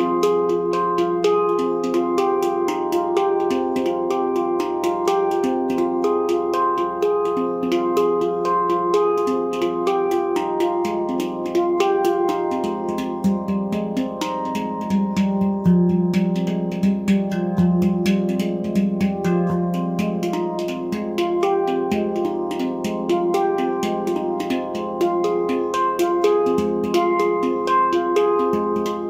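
Nimo Sounds handpan in F low pygmy tuning, played by hand in a flowing improvisation: quick finger strikes with many overlapping ringing notes, and deep low notes coming to the fore around the middle.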